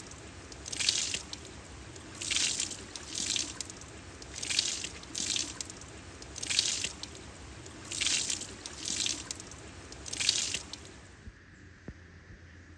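Falling water splashing in uneven surges about once a second, over a steady low trickle; the splashing stops about eleven seconds in.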